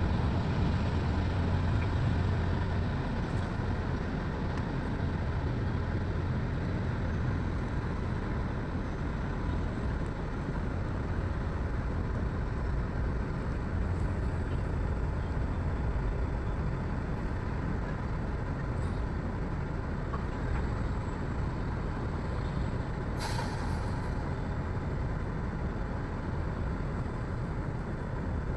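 Heavy diesel machinery running steadily with a low rumble, from an excavator and dump trucks at work. About 23 seconds in comes one short, sharp hiss.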